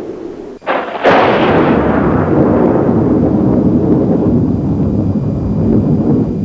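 A sharp bang, then a bigger boom about half a second later, followed by a long, loud rumble, like an explosion.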